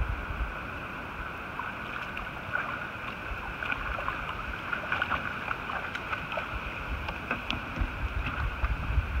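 Wind buffeting the microphone on open water over a steady hiss, with scattered small ticks and splashes of water.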